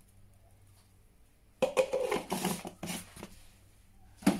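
Kitchen handling noises: about a second and a half in, a loud stretch of rustling and clattering, then a single sharp knock near the end.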